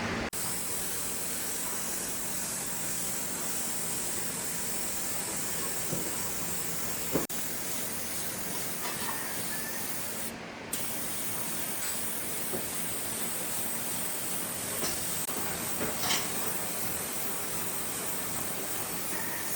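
A steady hiss, strongest in the high range, that drops out briefly about ten seconds in, with a few faint clicks.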